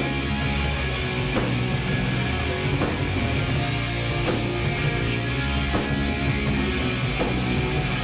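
Live rock band playing: electric guitars over a drum kit, with cymbal and drum accents on a steady beat about every second and a half.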